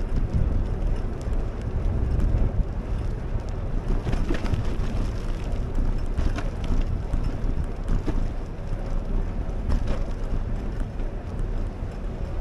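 Wind buffeting the microphone of a camera riding along an asphalt path, over a steady rumble of wheels on the pavement. A few sharp knocks and rattles break through as the wheels cross cracks in the path.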